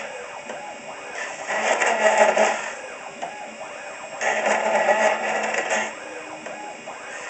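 CNC router spindle with an end mill cutting into a wooden cylinder turned on a rotary fourth axis. The cut swells louder twice, about a second and a half each time, as the cutter bites into the wood, with quieter machine running in between.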